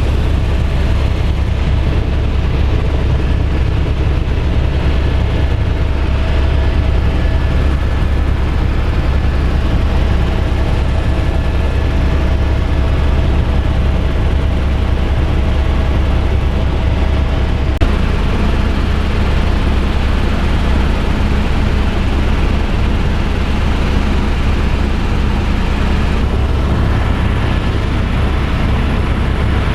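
Helicopter in flight: a loud, steady drone of engine and rotors, with a slight shift in tone about 18 seconds in.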